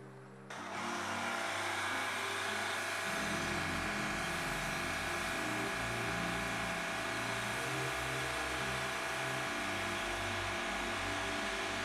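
PowerJet pressure washer spraying a touchless pre-soak mist onto a trailer's doors: a steady hiss of spray that starts about half a second in, over the washer's running engine and pump.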